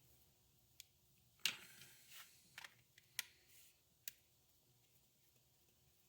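Faint, scattered clicks and taps of small hand tools and screws on the plastic shell of a Nintendo 3DS XL being taken apart: about six in the first four seconds, the sharpest about a second and a half in.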